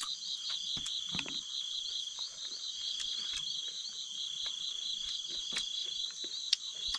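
Night chorus of calling insects: a steady high trill with a fast, even chirping pulse of about five a second over it. Scattered light clicks and knocks sound through it, the sharpest near the end.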